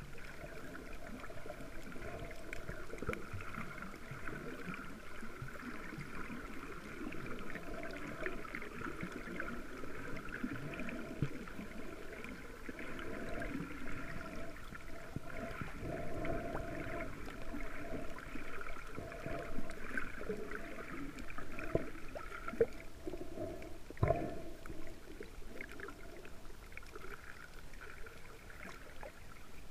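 Underwater sound through a camera's waterproof housing while snorkelling: a muffled wash of water with a steady hum, and a single sharp knock late on.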